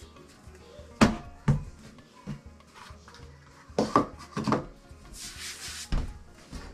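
Hands kneading and pressing chapati dough on a tabletop: a series of dull knocks, with a brief rubbing hiss about five seconds in. Background music plays underneath.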